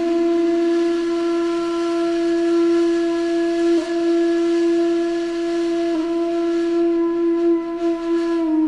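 One long, steady note from a wind instrument, held at a single pitch with only two brief wavers, then cut off abruptly.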